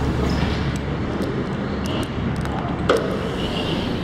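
Handling noise from a handheld camera carried at a walk: scattered clicks and a sharp knock just before three seconds in, over a steady low rumble.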